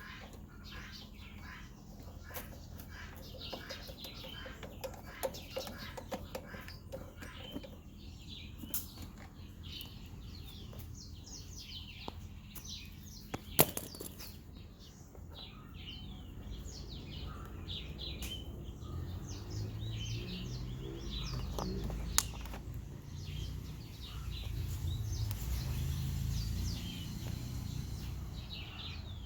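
Small birds chirping repeatedly, with a sharp click about halfway through and another later. A low rumble comes in during the second half and grows louder.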